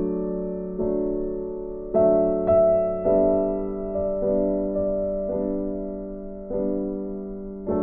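Background piano music: slow, gentle chords struck about once a second, each fading away before the next.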